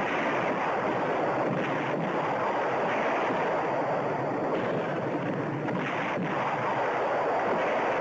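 A truck's engine running steadily as it drives, heard as an even, unbroken rumble.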